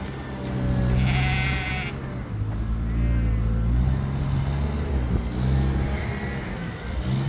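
Sheep bleating, with one loud bleat about a second in and fainter bleats after it, over a steady low engine hum.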